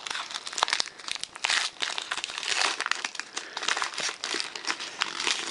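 Foil wrapper of a Pokémon trading-card booster pack crinkling and tearing as it is ripped open by hand, a dense run of sharp crackles.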